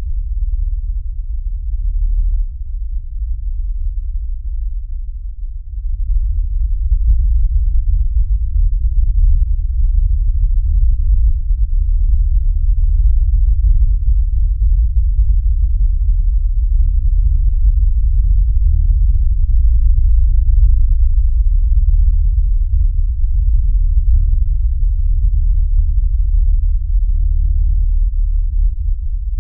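A steady, deep rumbling drone with no higher sounds in it, growing louder about six seconds in.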